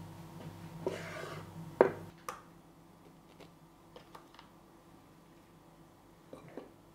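A knife slicing through mozzarella on a wooden cutting board: a short scrape about a second in, then two sharp knocks of the blade on the board. After that, only a few faint soft taps as tomato slices are laid on the pizza base.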